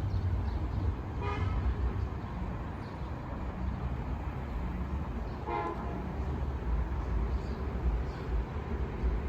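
Two short toots of a train horn, about four seconds apart, over a steady low rumble.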